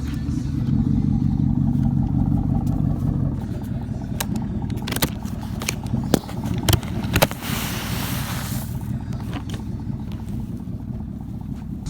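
A vehicle engine running steadily, with a few sharp knocks around the middle and a short burst of hiss about eight seconds in.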